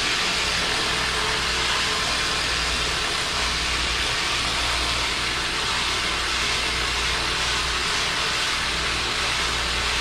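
Handheld electric massage gun running steadily against the quadriceps to loosen the muscle: an even hiss over a low hum, starting abruptly.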